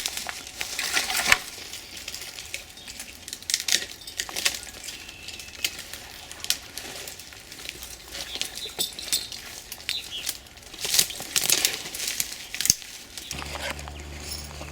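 Rustling and irregular sharp clicks and taps of close handling, with a steady low hum coming in near the end.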